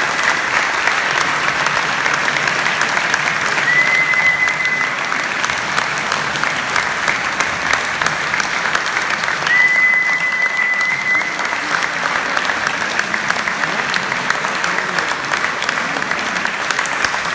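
Concert-hall audience applauding steadily. Two brief high steady tones sound over the clapping, about four and about ten seconds in.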